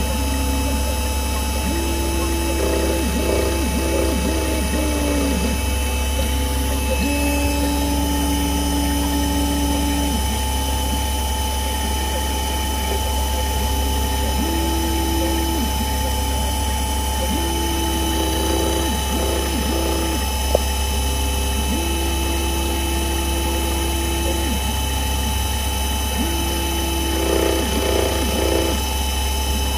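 CNC milling machine cutting a connecting rod with an end mill under flood coolant. There is a steady motor hum and spindle whine. Axis-drive tones start, stop and change pitch every few seconds as the cutter moves along its path.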